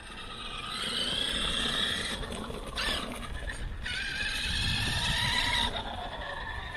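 Traxxas E-Revo RC monster truck driving on asphalt: its electric motor and drivetrain whine, rising and falling as the throttle is worked, over tyre rumble on the pavement.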